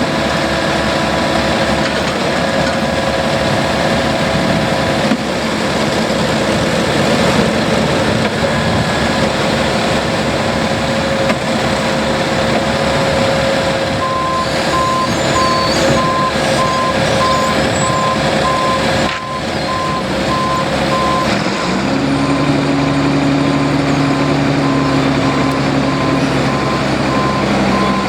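Heavy asphalt-paving equipment engines running steadily. About halfway through a backup alarm starts beeping at an even pace, and near the end an engine's note rises and then holds.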